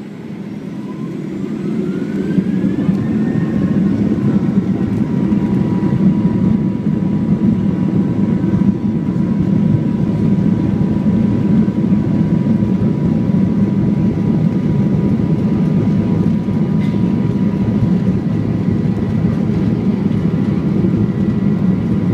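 Boeing 737 turbofan engines spooling up to takeoff thrust, heard from inside the cabin over the wing. A whine rises over the first three seconds as the noise swells, then holds as a steady loud rush with a constant hum through the takeoff roll.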